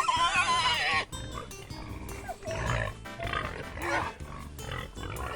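Pig squealing over background music: one long, wavering squeal in the first second, then several shorter calls.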